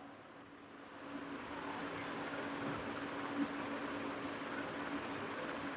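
A cricket chirping in a steady rhythm, short high chirps about every 0.6 s. Under it are a faint steady hum and a soft hiss.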